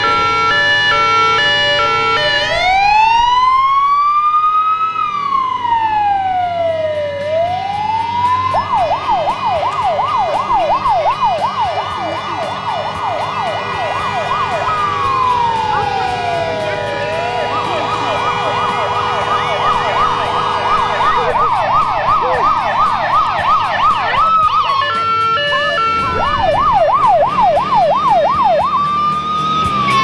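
Fire engine sirens sounding: a two-tone hi-lo at first, then an electronic siren that alternates between slow rising and falling wails and a fast yelp, switching between the two modes several times.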